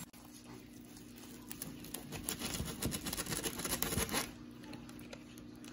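A knife cutting through the crisp, crackling skin of deep-fried pork belly (lechon kawali): a run of dry crunching and crackling clicks from about a second and a half in until about four seconds in, over a low steady hum.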